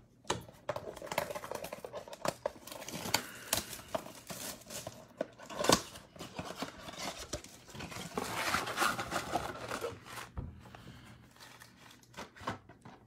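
A Mosaic NBA trading-card blaster box being torn open by hand: cardboard tearing and wrapping crinkling, with irregular clicks and taps as the foil packs are pulled out, and a longer stretch of tearing about eight seconds in.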